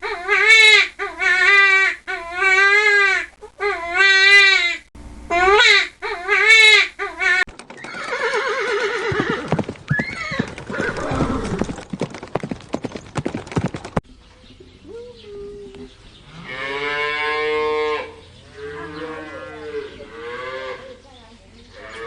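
Farm animals calling in succession: a series of short calls with wavering pitch, then a longer, noisier call, then another set of pitched calls near the end.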